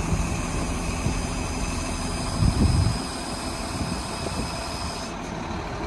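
Truck-mounted crane's engine running steadily while it holds the boat up in lifting straps, with a brief louder low rumble about two and a half seconds in.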